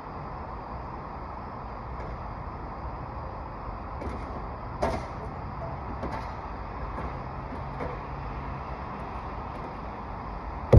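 Steady outdoor background rumble, like distant traffic, with a few short scraping handling sounds; the most distinct, about five seconds in, carries a brief squeak. A sharp knock comes right at the end.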